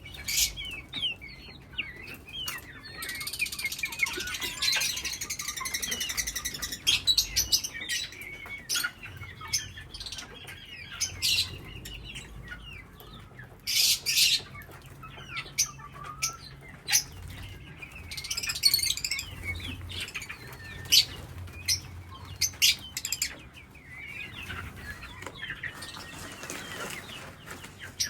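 A colony of small parrots chirping and calling over one another, with frequent short, sharp calls and bursts of wing flapping.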